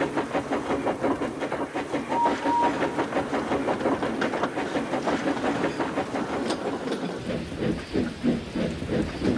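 Steam locomotive running with a quick, even beat of chuffs and rail clatter, and two short toots on its whistle about two seconds in. Around seven seconds the beat changes to slower, separate chuffs.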